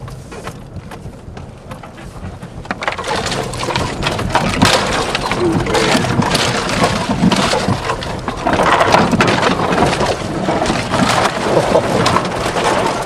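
Branches and brush scraping and snapping against the body of a Jeep as it forces its way through thick woods, heard from inside the vehicle: a dense crackling and scratching that starts about three seconds in and stays loud. This is the brush scraping that strips the Jeep's paint.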